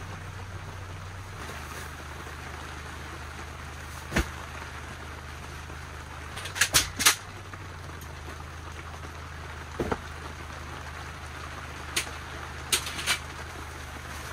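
Camping gear being handled and set down on the tent floor: a few sharp knocks and clacks, with a quick cluster of three about halfway through, over a steady low hum.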